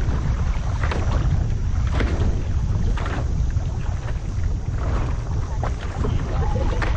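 Strong wind buffeting the microphone in a deep, steady rumble, with water splashing in short bursts about once a second.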